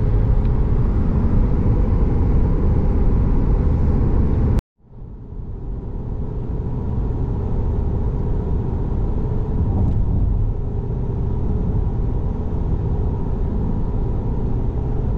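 Road noise inside a moving car's cabin: a steady low rumble with a faint hum. About four and a half seconds in it cuts out abruptly, then fades back up and runs steadily again.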